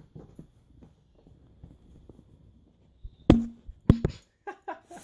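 A dog knocking against the camera: two sharp knocks about half a second apart, past the middle, then a few lighter clicks and taps near the end, after a quiet start.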